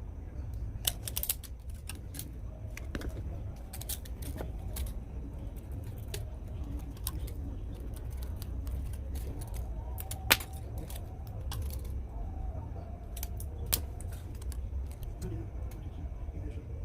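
Scattered clicks and light metallic clinks of small parts and tools being handled during a blender repair, over a steady low rumble. The sharpest click comes about ten seconds in.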